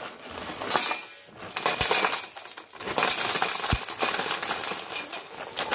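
Freshly caught crabs tumbling out of a plastic bag into a steel plate, their shells and legs clattering and scraping on the metal in a dense, busy rattle that starts about a second in.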